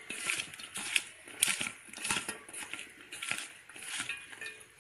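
Cut okra pieces being tossed and rubbed by hand with dry batter mix and spice powder in a stainless steel bowl: repeated rustling, scraping strokes, one or two a second, with light clicks of the pieces against the steel.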